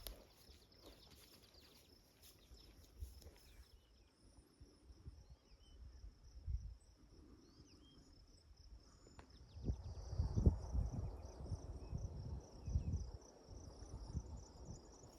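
Insects trilling in a steady, rapidly pulsing high buzz. About two-thirds of the way through comes a run of low thuds of footsteps.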